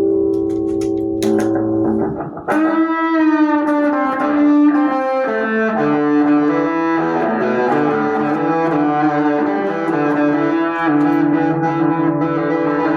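Clean electric guitar played through a Joyo Aerolite Dr.J compressor pedal. A chord rings out, a new chord is struck about two and a half seconds in with a wavering pitch, and then a run of changing chords and notes follows.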